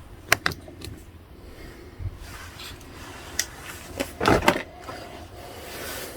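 A handful of sharp clicks and knocks from small hard objects being handled, the loudest a short clatter about four seconds in, over a faint steady hiss.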